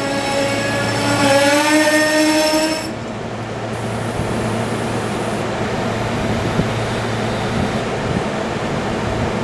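SEPTA Silverliner V electric commuter train at a station: a loud pitched sound with several tones, drifting slightly upward, stops abruptly about three seconds in. It leaves a steady low hum and whir from the train's onboard equipment.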